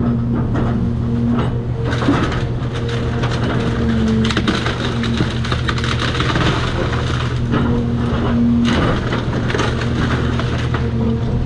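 Cat 336 excavator's diesel engine running under load while wood cracks and crunches in its grip. The crackling is heaviest from about two to nine seconds in.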